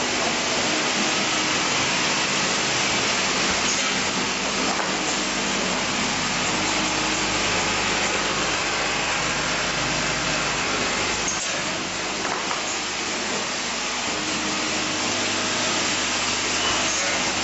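Automatic assembly and riveting machine running with its vibratory bowl feeders: a steady mechanical din with a faint low hum underneath.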